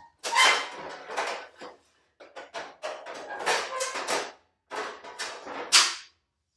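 Sheet-steel Triumph Spitfire floor pans and panels being handled on a concrete floor, scraping and knocking in three irregular spells, with the sharpest knock near the end.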